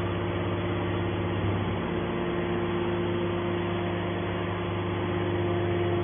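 Hydraulic scrap metal baler's power unit running with a steady hum while the baler's hinged top lid is raised.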